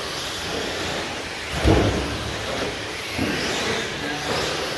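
Radio-controlled short course trucks racing on a track: a steady din of small motors and tyres, with one louder low thump about two seconds in.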